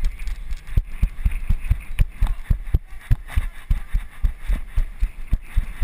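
Footsteps of a child running, picked up through a body-worn action camera: a steady run of thumps, about four to five a second.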